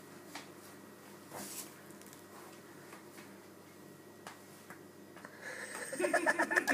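Faint scattered taps and scuffs of a small dog's rubber-soled boots on a tiled floor as it steps and scrambles. Near the end a person's voice comes in, pulsing rapidly like a chuckle.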